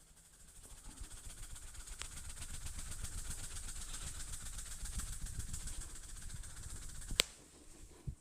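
Fast, even rubbing strokes of a head massage, with a hiss over them. They build up over the first second and stop about seven seconds in with a sharp click.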